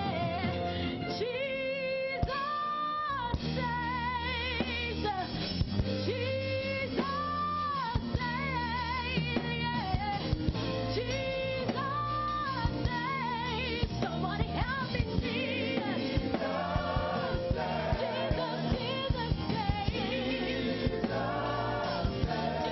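Live gospel praise-and-worship music: voices singing held notes with vibrato over a band keeping a steady beat.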